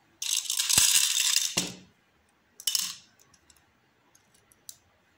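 Silver sugar dragées rattling inside a clear plastic jar for about a second and a half, then a second, shorter rattle and a few light clicks.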